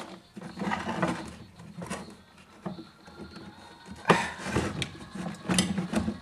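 Irregular clicks, knocks and rattles of chainsaw parts being handled and fitted by hand during reassembly, with a sharp knock about four seconds in and another near the end.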